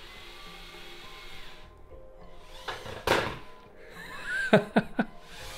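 Plastic Lego containers knocked off a stack by the automated gantry crane: a loud thud about three seconds in, then a quick run of sharp clattering knocks near the end. A fault the builder believes is a programming error made the crane knock the container off. Soft background music runs underneath.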